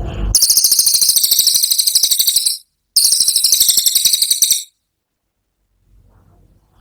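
Cililin songbird singing its rapid 'tembakan' song: two high, fast rattling trills of about two seconds each, separated by a short break, followed by quiet.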